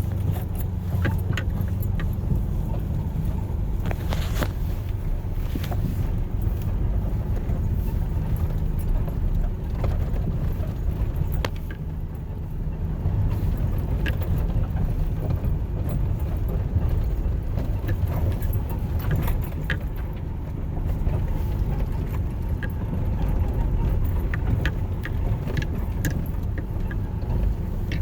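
Inside a pickup truck's cab while driving: steady low engine and road rumble, with light jingling rattles now and then.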